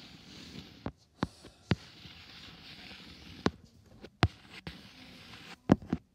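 Wheels clicking and knocking over track joints, about seven sharp knocks at irregular intervals over a steady rushing noise.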